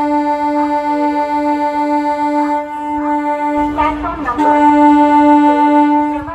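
Train horn sounding one long steady note, breaking off briefly about four seconds in and then sounding again louder. A low rumble comes in under it shortly before the break.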